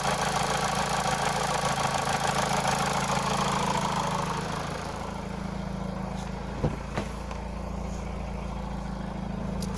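Mitsubishi 4B11T turbocharged four-cylinder engine idling with the knock whose source the owner cannot locate. About halfway through the sound becomes quieter and more muffled, and two short sharp knocks follow a moment apart.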